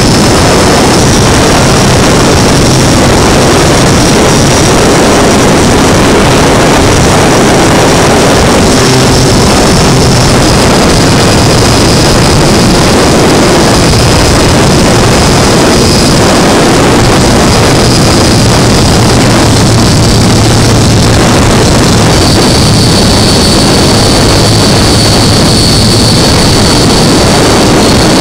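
Electric RC model Cessna 182 in flight, heard from its onboard camera: a high steady whine from the motor and propeller over loud rushing wind on the microphone. The whine shifts slightly up and down in pitch a few times with the throttle.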